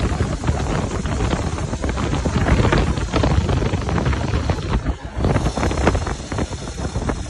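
Wind buffeting the microphone on a moving vehicle, over a steady low rumble with frequent short knocks and rattles from driving a rutted dirt track.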